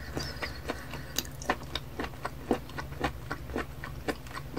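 Wet mouth clicks and lip smacks as a person sucks and chews a live octopus tentacle at the lips: a quick, irregular run of short sharp clicks.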